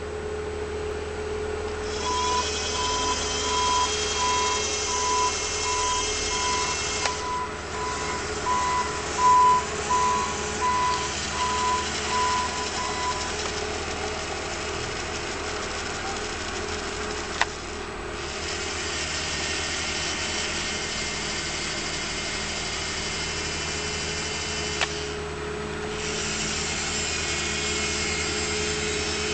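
Small electric motor of a New Bright TC36 toy tower crane whirring as it winds the hook cable to lower and raise the basket, stopping and restarting a few times with a click. Over the first half a regular electronic beep sounds about twice a second.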